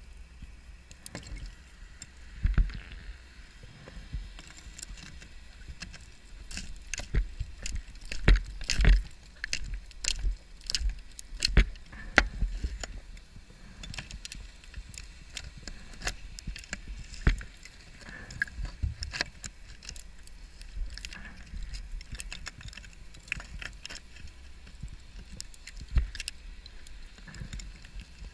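Underwater sound inside a steel shipwreck: irregular clicks and knocks, some much louder than others, over a low rumble, from a scuba diver's gear and hands bumping the structure.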